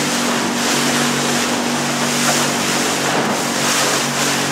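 Small boat's motor running at a steady pitch under way, with an even rush of water and wind noise over it.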